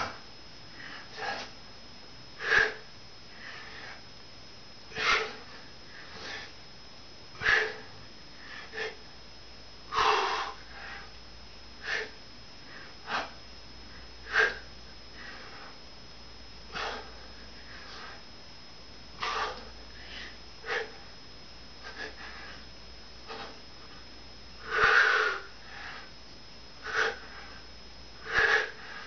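A man breathing hard through his nose and mouth while doing push-ups: short, sharp breaths, one every second or two, paced with the reps.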